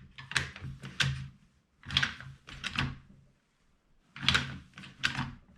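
Handling noise from the Mag Pump loader and its box being moved about: three bursts of knocks and scrapes, each about a second long, with short pauses between.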